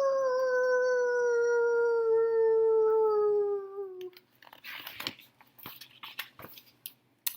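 A long dog-like howl, rising quickly and then sliding slowly down in pitch for about four and a half seconds, followed by a few soft clicks and rustles.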